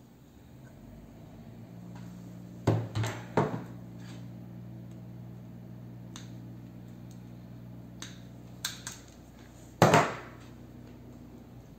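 Hand tools handled on a wooden workbench during circuit-board repair: three sharp clacks about three seconds in, two small clicks near nine seconds and the loudest knock at about ten seconds. A steady low hum runs underneath.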